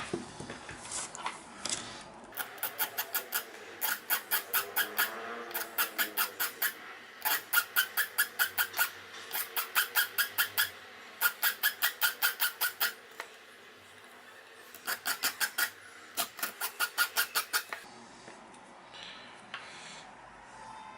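Hand file scraping the tip of a metal wire-connector terminal removal tool to take the sharp point off, in quick back-and-forth strokes of about five a second, in short runs with brief pauses.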